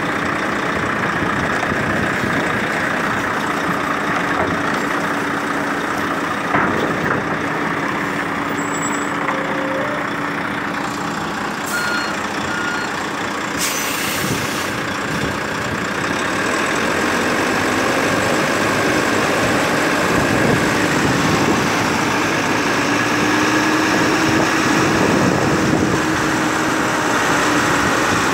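Volvo FMX 440 tractor unit's six-cylinder diesel running under heavy load as it creeps forward with a 110-ton lowbed trailer, its hum rising slightly in the second half. A short hiss of air comes about halfway through.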